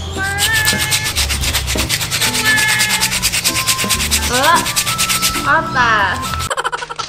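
Sandpaper rubbed by hand over a coconut's shell in quick back-and-forth strokes, a fast even rasping that stops after about six and a half seconds.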